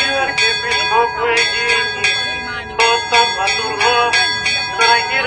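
Church bells ringing a rapid festive peal, about two to three strikes a second, over a man's voice chanting.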